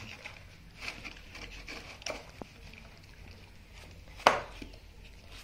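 Golden retriever licking and chewing food from a plastic container, in a series of short wet smacks and small clicks. A single sharp knock about four seconds in.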